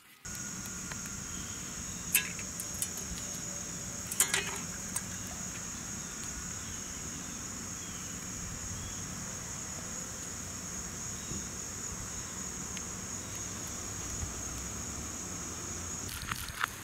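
Outdoor ambience of insects chirring steadily in a high, unbroken band, with a few faint clicks about two and four seconds in and a quick run of clicks and taps near the end.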